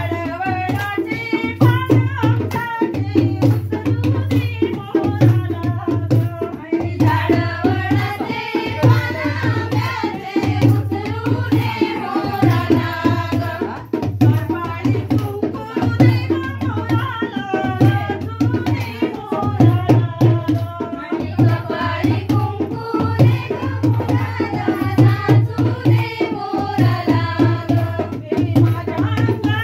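Group singing of a Marathi folk song over a steady, driving rhythm on a two-headed barrel drum played by hand.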